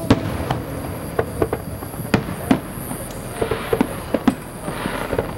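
Fireworks display: aerial shells bursting, about a dozen sharp bangs at uneven intervals, some close together.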